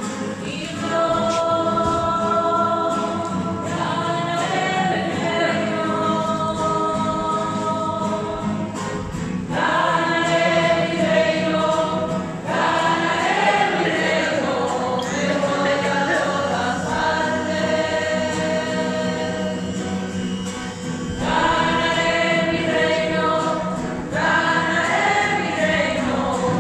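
A group of voices singing a slow hymn in long held notes, in phrases a few seconds apart, over a steady low hum.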